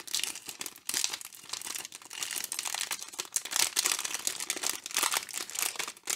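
Thin clear plastic bag of LEGO pieces crinkling in the hands as it is pulled open, an irregular run of crackles.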